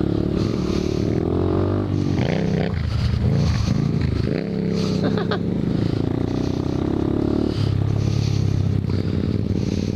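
Motorcycle engine heard from on the bike while riding a dirt trail, its pitch rising and falling as the throttle is opened and closed, holding steadier near the end.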